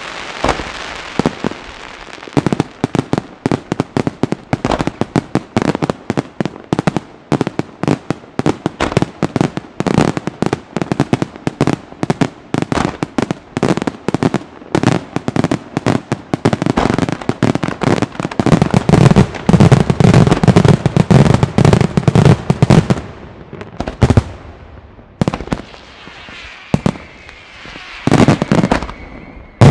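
Aerial fireworks display: a rapid, dense barrage of shell bursts, several bangs a second, heaviest and deepest in the second half. It then thins out into a crackling hiss from glittering stars, with a few last bangs near the end.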